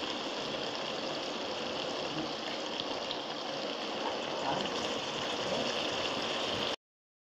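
Water poured from a jug into a pan of potato slices frying in hot oil, with a steady hiss and sizzle. The sound cuts off suddenly near the end.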